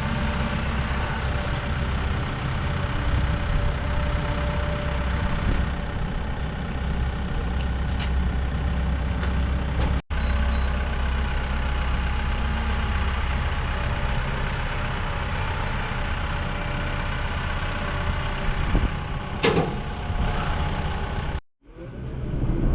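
Diesel engine of heavy earthmoving equipment running steadily. It breaks off for an instant about halfway through and drops out briefly near the end.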